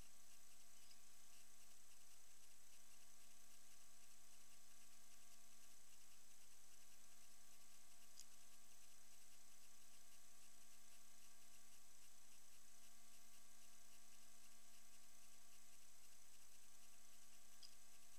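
Faint steady electronic hum and hiss with several fixed tones, the action camera's own recording noise, with one brief faint tick about eight seconds in.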